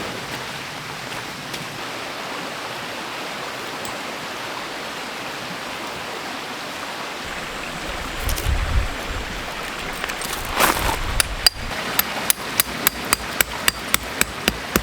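Steady rushing water noise, with handling noise near the middle; in the last few seconds a hammer strikes a dozen or so times in quick, even succession, about four blows a second.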